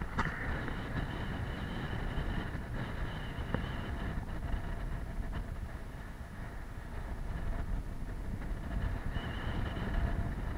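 Wind buffeting the microphone and water rushing past the hull of a Moody 44 sailing yacht heeled over and sailing fast through choppy sea: a steady, low rumbling wash of noise.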